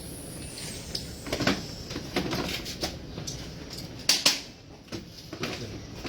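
Scattered plastic clicks and knocks of a Glock 17 gas-blowback airsoft magazine and pistol being handled, with the loudest pair of knocks about four seconds in.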